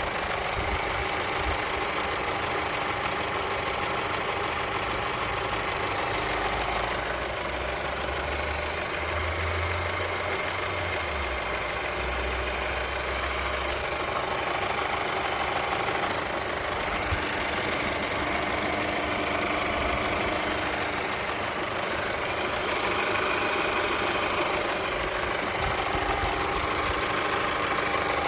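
Mercedes-Benz A-Class W177's M282 1.3-litre turbocharged four-cylinder petrol engine running steadily with a ticking noise of unknown cause.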